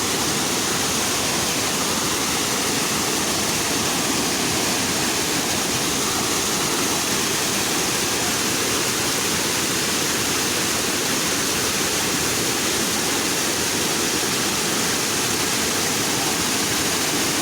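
Waterfall: falling water rushing with a steady, even sound.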